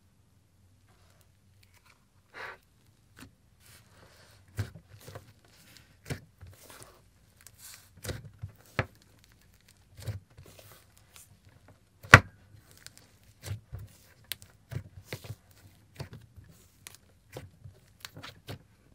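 Thick clay slime being poked, pressed and stretched by hand, giving irregular soft crackles, squelches and small pops, with one loud sharp crack about twelve seconds in.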